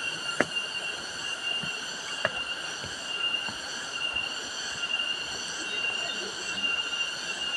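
A forest insect chorus, such as cicadas: a steady high-pitched drone with no breaks, with a sharp click under half a second in and another just after two seconds.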